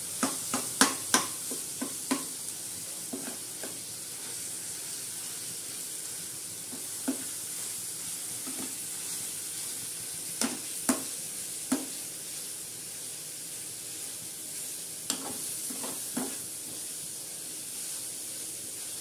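Onions and tomatoes frying in oil in a non-stick kadai, with a steady sizzle. A metal spoon stirs and mashes them, knocking against the pan in a quick cluster at the start and then every few seconds.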